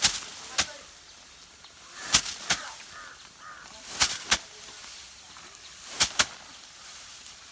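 Paddy being threshed by hand: sheaves of harvested rice swung and beaten against a hard surface, each stroke a swish and a hit, in pairs about every two seconds.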